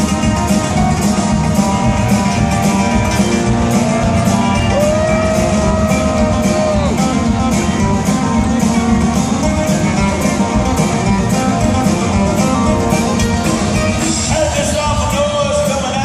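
Live band playing a song with a steady beat: amplified acoustic guitar over other guitars, bass and drums, heard from the crowd in a large venue.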